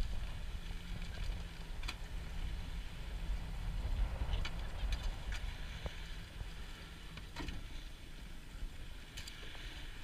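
Small boat's outboard motor running at idle, a low steady hum that eases off about halfway through, with a few light knocks.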